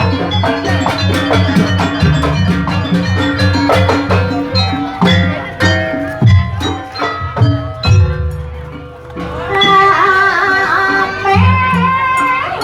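Traditional jaranan ensemble music: drums and struck metal percussion playing a fast, dense rhythm, joined about nine seconds in by a wavering melody line.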